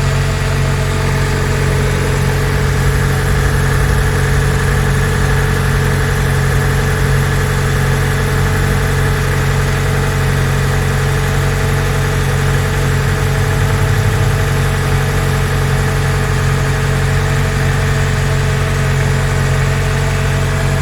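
Nissan Serena C23 engine idling steadily at a raised cold-engine idle of about 1000 rpm.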